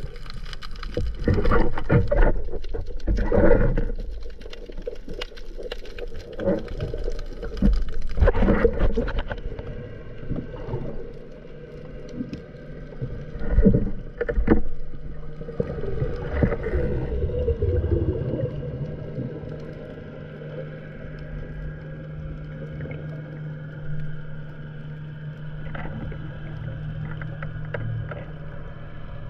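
Water sloshing and splashing around a speargun-mounted camera at the sea surface for the first several seconds, then a quieter underwater stretch with a few knocks and a steady low hum.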